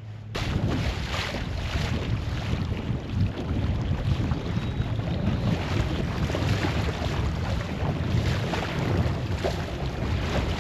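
Strong wind buffeting the microphone, with choppy water splashing around a kayak. It starts abruptly a fraction of a second in and stays loud and rumbling throughout.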